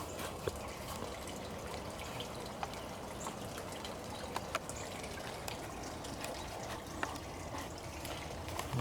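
Water pouring and trickling steadily onto the ground as a small tree is watered, with a few faint clicks scattered through it.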